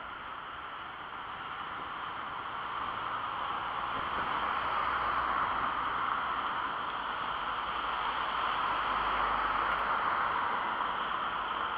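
Steady rushing road noise heard from a camera on a moving bicycle: wind and the tyre rush of passing cars, growing louder from about three seconds in as cars overtake.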